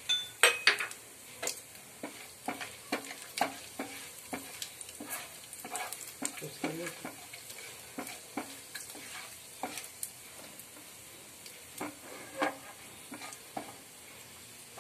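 Whole spices (cumin seeds, black peppercorns, cinnamon, cloves and black cardamom) frying in hot oil in a nonstick pan: a faint steady sizzle with irregular sharp pops and crackles as the seeds start to splutter, and a spoon clicking against the pan now and then as they are stirred.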